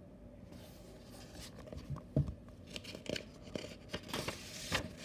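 Pages of a paper textbook being turned and handled: a run of papery rustles and soft knocks that starts about a second and a half in.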